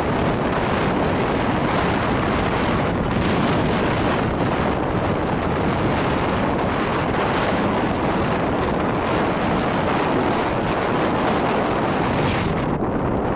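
Blizzard wind buffeting the microphone: a steady, dense rush of wind noise.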